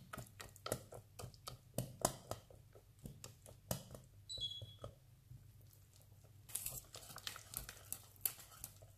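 Wire whisk stirring thick chocolate pastry cream in a stainless steel saucepan, its wires clicking and tapping against the pan several times a second. A brief high tone sounds a little after four seconds in.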